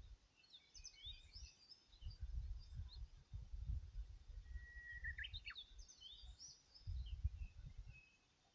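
Wind buffeting the microphone in gusts of low rumble, with small birds chirping and twittering, once about a second in and again about halfway through.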